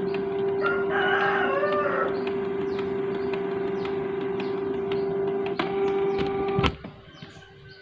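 Canon PIXMA G2010 inkjet printer running a copy job: a steady motor hum with regular clicks as it pulls the paper in cleanly, stopping suddenly about two-thirds of the way through. A rooster crows in the background about a second in.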